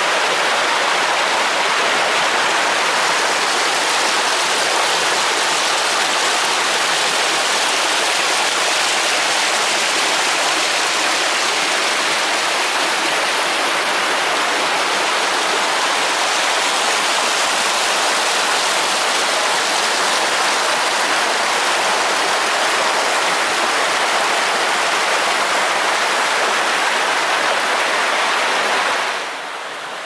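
Rushing water of a small rocky stream cascading over boulders, a steady loud rush that drops off sharply near the end.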